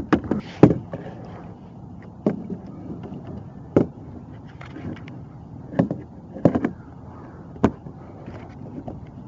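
Irregular hollow knocks and clunks of gear handled against a plastic fishing kayak, about eight sharp knocks spread unevenly through the few seconds.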